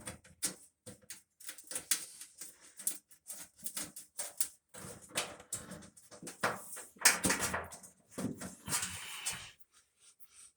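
Hand work on a dryer heating element's wiring while a heavy-duty pigtail is fitted: irregular small clicks and knocks of tools and metal parts, with a louder stretch of scraping and rustling about seven seconds in.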